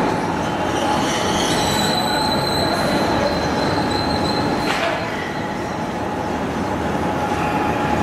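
Induction diathermy furnace running under power: a steady industrial din with a constant high whine, joined by a second, higher whine for a few seconds early on. A short clank comes about five seconds in.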